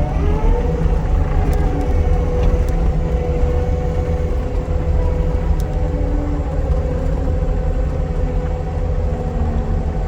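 Heavy diesel equipment engine running hard under load, rising in pitch just after the start and then holding a steady deep rumble.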